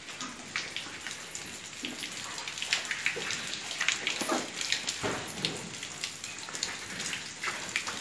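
Water dripping and splashing on a wet concrete cowshed floor, with many small irregular drips and knocks over a steady wet hiss.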